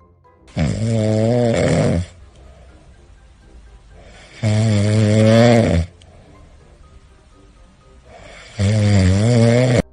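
Cat snoring: three loud, buzzing snores, each about a second and a half long and roughly four seconds apart, with quiet breathing between.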